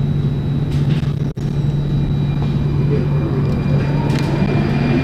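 Cabin noise of a Singapore MRT Circle Line train pulling out of the station: a steady low hum over a rumble, with a motor whine starting to rise in pitch near the end as the train gathers speed. The sound cuts out for a split second about a second in.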